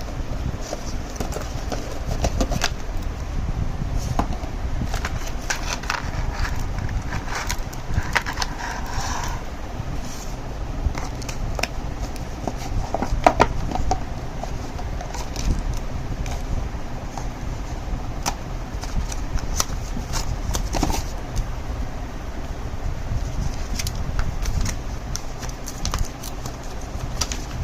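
Scattered clicks and rustles from a gaming mouse and its packaging being handled, with a couple of louder knocks around 13 seconds in, over a steady low rumble.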